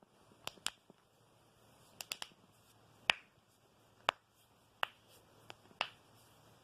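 Knuckles cracking: about ten sharp, separate pops at irregular intervals, a few in quick pairs and triplets.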